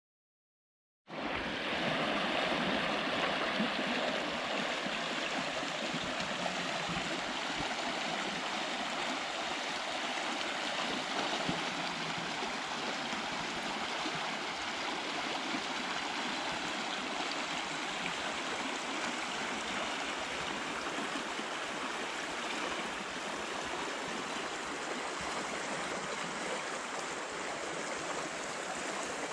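Shallow creek running over a stony gravel bed, a steady rush of water through small riffles. It starts suddenly about a second in.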